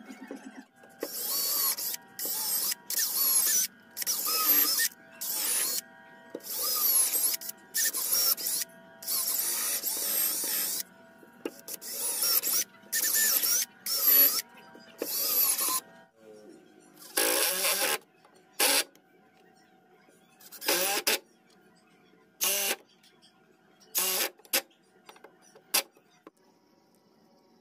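Cordless drill running in repeated short bursts as it bores into a clamped hardwood piece, about a dozen bursts in quick succession, then a handful of shorter, sparser bursts in the second half. Faint background music plays underneath.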